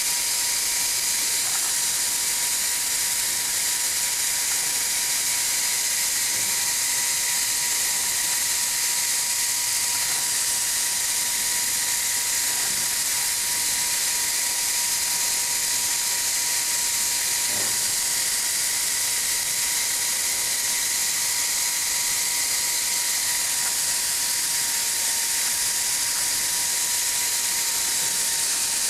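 Portable Triac hot air plastic welder running steadily during a draw weld: an even hiss of air from its blower with a thin, steady whine.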